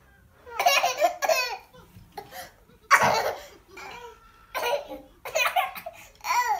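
A young child laughing in short bursts, with a louder burst about three seconds in.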